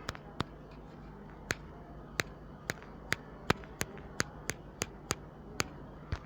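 A series of about fourteen sharp, irregularly spaced clicks or taps over a faint steady hum.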